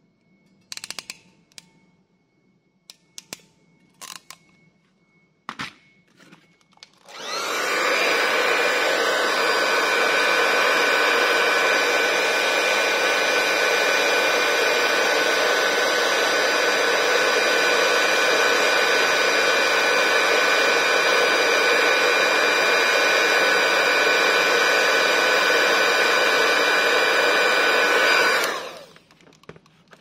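Electric heat gun switched on about seven seconds in, running steadily with its fan rush and a steady whine for some twenty seconds while it shrinks a heat-shrink butt connector on a wire, then cut off near the end. Before it, a few sharp clicks as the ratchet crimping tool closes on the terminal.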